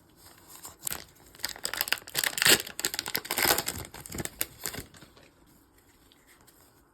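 Pokémon booster pack's crinkly foil wrapper being torn open and handled: a flurry of crinkling and tearing for about four seconds that dies away near the end.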